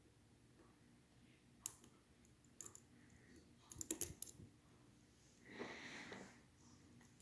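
Lock picks and a tension tool working in a Schlage Primus lock cylinder: scattered small sharp clicks, with a quick cluster about four seconds in. A soft hiss lasting about a second comes a little later.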